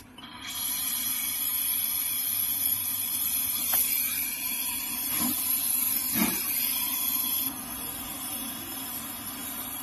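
Gas brazing torch hissing steadily as it heats a refrigerator capillary tube joint, a step in clearing a blocked capillary. The hiss comes up about half a second in and eases slightly near the end.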